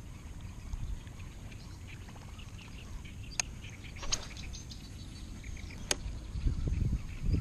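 A baitcasting reel during a cast: a sharp click, a short rattling whir from the spool as the lure flies out about four seconds in, and another sharp click near the end. Under it runs a steady low rumble, with faint bird calls.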